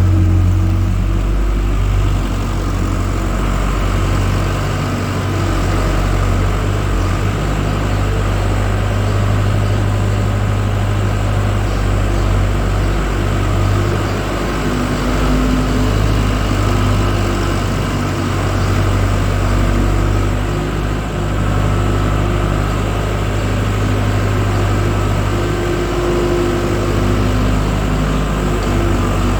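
Engine of the farm machine used to scrape manure from the barn alley, running steadily at an even speed.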